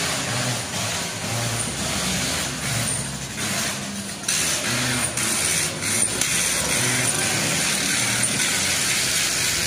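Construction-site noise: machinery running under a steady hiss, growing louder about four seconds in.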